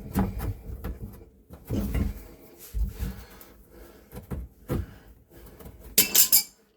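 Channel-lock pliers working at old staples in a wooden cabinet: knocks, clicks and scrapes of metal on wood. A loud, sharp metal scrape comes about six seconds in.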